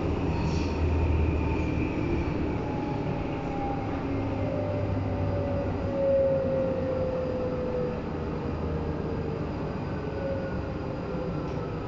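Berlin U-Bahn H-series train running through a tunnel and into a station: a steady rumble of wheels on track, with the traction motors' whine falling slowly in pitch as the train slows.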